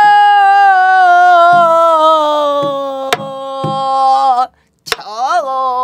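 Pansori singing in the slow jinyang rhythm: a woman's voice holds one long note that sinks slowly in pitch, with four or five strokes on a buk barrel drum beneath it. After a short break near the end comes a brief sung phrase with a quick rise and fall in pitch.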